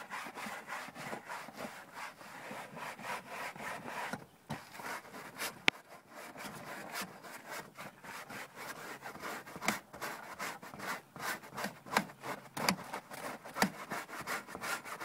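Hand scrubbing a truck's center console with cleaner: quick, repeated rubbing strokes, with a single sharp click about six seconds in.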